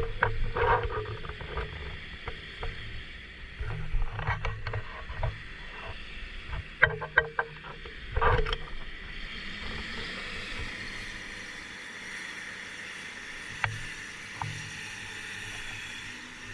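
Old Komatsu excavator at work: its engine running under a string of irregular knocks and clunks for the first half, then a steadier running noise with a couple of faint knocks near the end.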